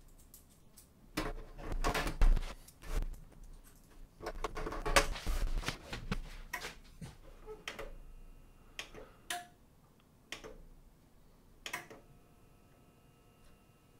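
A Sony CMT-CP33MD mini hi-fi being handled and shifted on the workbench mat, giving two clusters of scraping and knocking, then a series of sharp single clicks, one near the end as its front-panel power button is pressed. A faint steady high tone runs under the later clicks.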